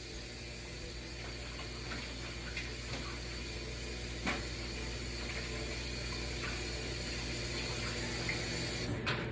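Water running from a kitchen tap into the sink, a steady rush that grows slightly louder, with a few light clinks, the clearest about four seconds in.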